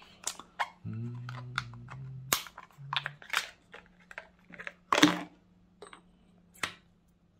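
Blue plastic battery storage case clicking open and large cylindrical lithium-ion batteries being handled, a string of sharp plastic clicks and snaps. A short low hum comes in about a second in.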